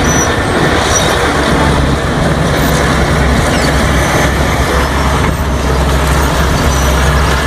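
Large diesel crawler bulldozer running steadily under load as it pushes a pile of loose material: a constant deep engine hum beneath a dense mechanical din.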